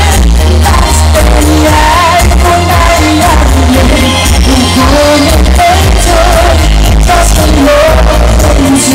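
A woman singing live into a handheld microphone over loud amplified music with a heavy bass beat.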